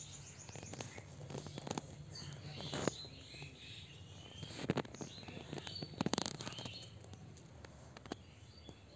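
Small birds chirping and twittering, with a few sharp clicks and knocks, the loudest about five and six seconds in.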